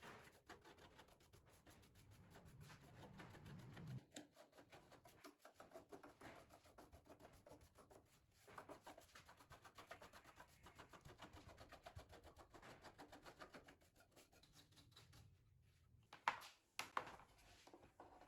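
Faint, fast rubbing strokes on a surface, going on in spells, with two sharp clicks near the end.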